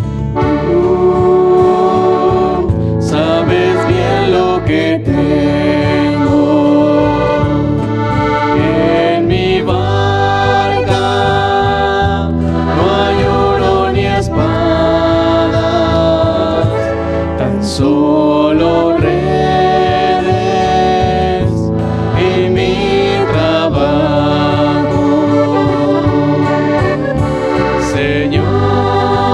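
Live performance of a Spanish-language Catholic hymn: several voices singing together over a button accordion, guitar and electric bass.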